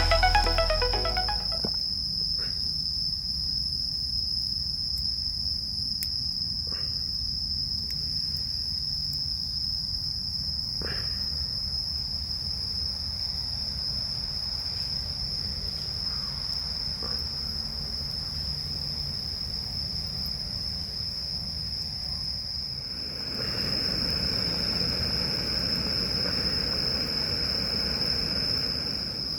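Insects singing in one steady high-pitched trill, with a few faint short chirps in between. About three-quarters of the way through, a low rushing rumble swells in and keeps on.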